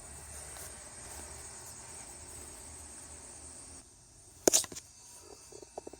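Steady high insect buzz outdoors over a faint hiss that drops away near the four-second mark, then a single sharp clack about four and a half seconds in, followed by a few light clicks of handling.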